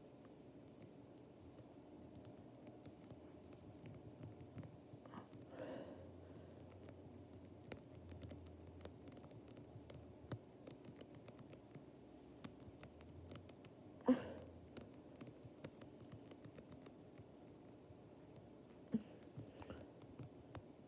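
Number wheels of a small four-dial combination padlock being turned by hand while decoding it, a run of faint, irregular little clicks from the dials, with a sharper knock about 14 seconds in.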